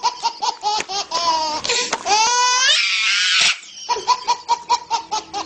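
A person laughing hard in rapid, high-pitched 'ha' pulses at about four or five a second. About two seconds in the laugh rises into a squeal and then a breathy stretch, before the quick pulses start again near the end.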